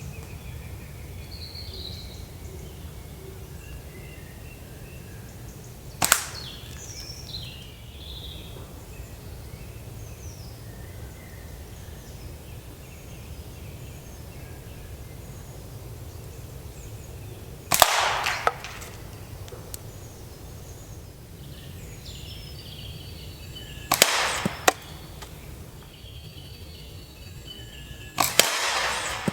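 Slingshot shots: four sharp cracks several seconds apart, some followed by a second knock, as shots are loosed and strike the targets. Birds chirp faintly over a steady low rumble.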